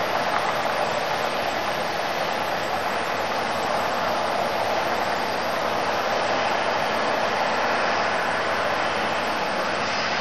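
A vehicle engine running steadily, an even mechanical noise without breaks.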